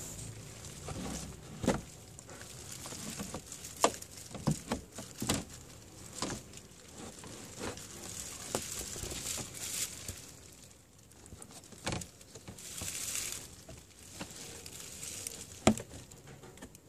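Irregular small clicks and taps of a tool working plastic push clips out of a car's plastic undertray, the sharpest about four seconds in and near the end.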